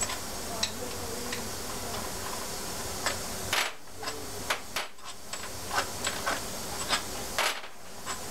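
Scattered metal clicks and clinks of a hand tool working the cylinder-head screws out of an Evinrude/Johnson 60-degree V6 outboard powerhead, with two short hissing bursts, one about three and a half seconds in and one near the end.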